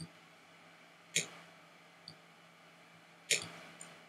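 Computer mouse button clicks: a handful of short, sharp clicks, the two loudest about a second in and a little past three seconds in, with fainter ones between.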